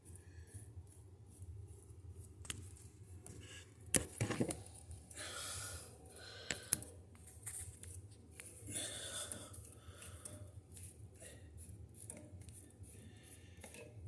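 Scattered handling noises: light clicks and knocks, one sharp knock about four seconds in, and a few short scraping or rustling noises.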